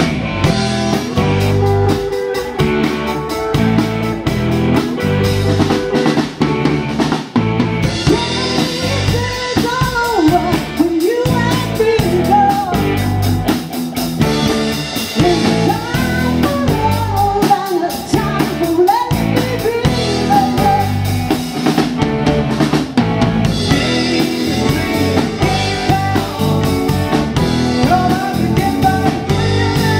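Rock band playing live: drum kit keeping a steady beat under bass and electric guitar, with a singer's voice coming in about nine seconds in and carrying through the middle, returning briefly near the end.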